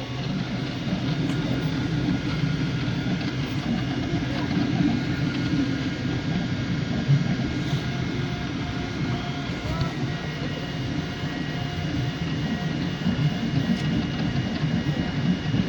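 Steady low rumble of a vehicle in motion, heard from inside, with a few faint steady whining tones over it.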